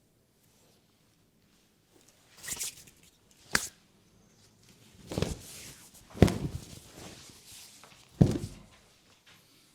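Hands slapping during a massage: a brushing rustle and one sharp click, then three loud slaps about a second or two apart.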